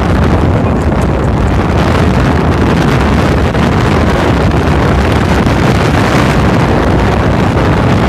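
Loud, steady wind noise buffeting the microphone over the running engine of a harbor cruise boat under way.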